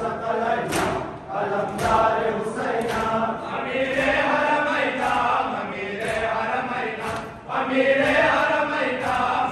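Men's voices chanting a Muharram mourning lament (noha) together, with the sharp slaps of hands beating on bare chests (matam) about once a second in time with the chant.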